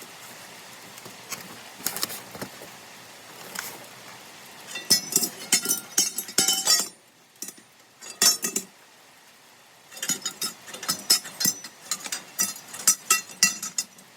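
Small metal parts and tools clinking and jangling in quick clusters, sharp ringing taps coming in two busy runs with a lull between. This is loose bolts, nuts and hardware being handled while the baler's pickup guards are unbolted.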